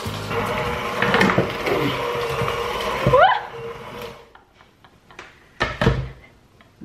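Electric hand mixer running, its beaters working through cookie dough, then switched off a little over three seconds in. A knock follows a couple of seconds later.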